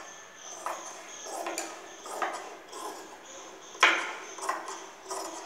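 Large tailoring scissors cutting through cloth in a run of separate snips, roughly one every half second to second, with one sharper, louder snap about two-thirds of the way through as a strip is cut off the fabric.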